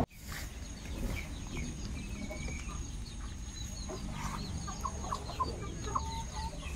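Birds calling in short, scattered chirps over a steady high-pitched tone.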